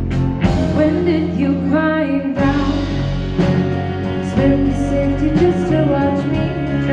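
A band playing a rock song, with regular drum hits, a bass line and a voice singing.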